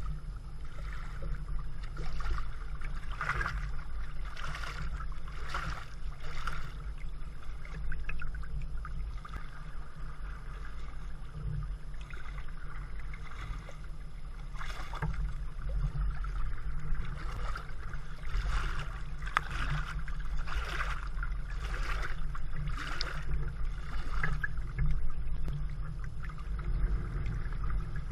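Kayak paddle strokes splashing in the water about once a second, in two runs with a quieter pause between, over water rushing and lapping against the hull. A steady low rumble runs underneath.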